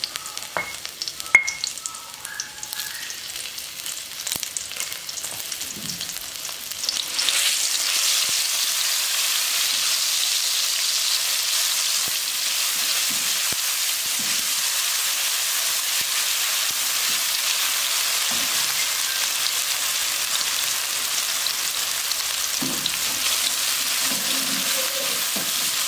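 Ground garlic and shallot paste frying in hot oil in a wok, sizzling steadily while a silicone spatula stirs and scrapes it. The sizzle jumps much louder about seven seconds in, and there is one sharp click just over a second in.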